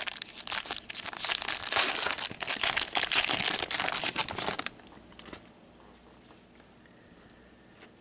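Foil wrapper of a hockey card pack being torn open and crinkled in gloved hands. The crinkling stops about four and a half seconds in.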